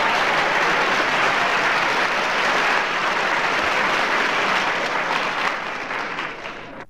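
Live audience applauding, steady and then fading out near the end.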